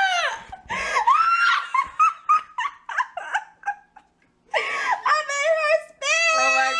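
Women laughing hard: high-pitched giggles and squeals in quick pulsing bursts, breaking off for a moment about four seconds in, then rising into long squealing laughter.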